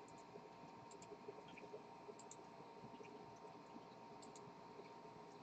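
Near silence, with a few faint, scattered small clicks, some in quick pairs.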